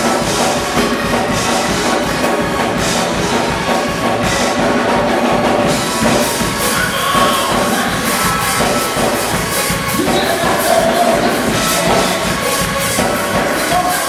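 Live gospel praise music with a steady percussive beat, with people clapping along.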